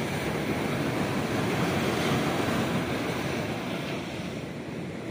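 Ocean surf washing on the beach, with wind rumbling on the microphone; the wash swells in the first couple of seconds and eases toward the end.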